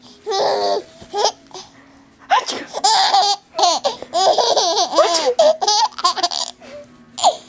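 A baby laughing in bursts of quick, high-pitched giggles: a short burst at the start, a long run of laughter from about two to six seconds in, and one more burst near the end.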